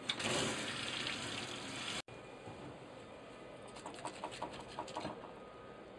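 Water from a tap rushing into a stainless-steel sink, rinsing away fish scales, which stops abruptly about two seconds in. After it, a few light knife taps on a plastic cutting board over a quiet background.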